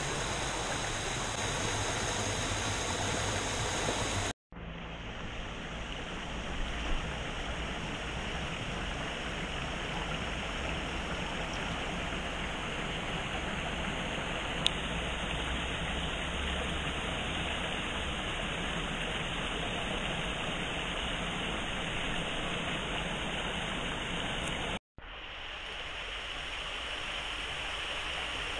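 A mountain stream running steadily over stones and small falls. The rush breaks off abruptly twice, about four seconds in and near the end, where one shot cuts to the next.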